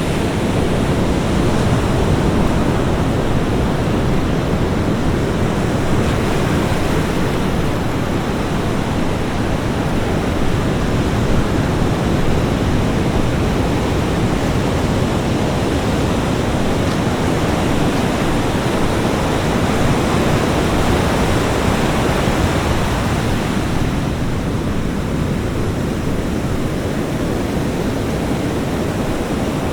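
Ocean surf breaking and washing on a beach: a loud, steady rush of water that swells and eases slightly, with no separate crashes standing out.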